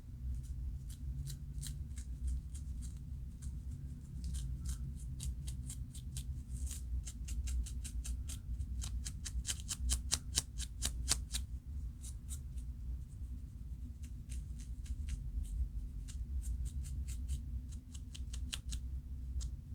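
Scratching at a flaky scalp with dandruff: quick, crisp scratch strokes, several a second, coming thickest about halfway through, over a low steady hum.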